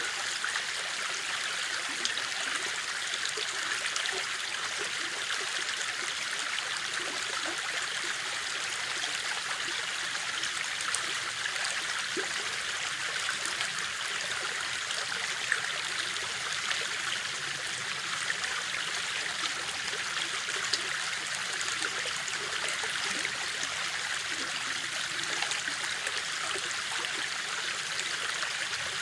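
River water flowing steadily, a constant rushing with small splashes scattered through it.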